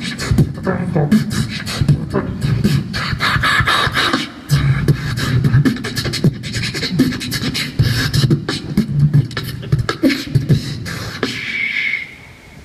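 Beatboxing into a microphone through a PA: a fast run of kick- and snare-like clicks over a heavy, repeated bass line. It stops about a second before the end.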